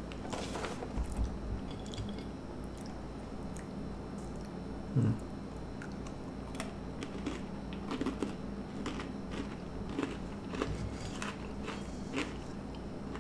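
Close-up chewing and crunching of small crunchy honey graham cracker snacks (Teddy Grahams), with scattered crisp cracks as they are bitten and chewed. A brief louder low sound comes about five seconds in.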